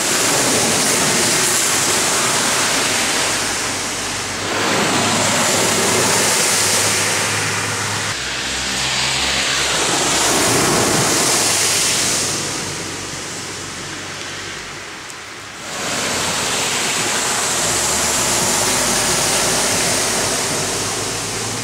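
Cars driving one after another through deep water on a flooded road, their tyres throwing up spray in a loud rushing hiss that swells with each pass, with low engine hum underneath.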